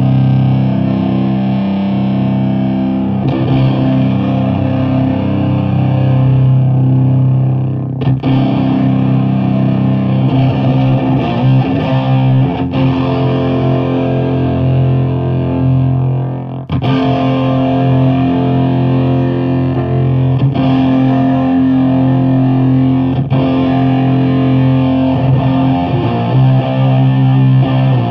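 Electric guitar played through fuzz pedals into a Bridge City Sound Morrison 50-watt head and a 6x12 cabinet of Celestion V70 Gold speakers: slow, heavily fuzzed low chords held long. There is a short break in the sound about eight seconds in and another a little past halfway, where the chords change.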